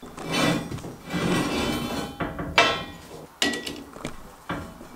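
Metal parts being set down and shifted by hand on a steel press bed: shuffling and scraping, then a few sharp clanks, the loudest about two and a half seconds in.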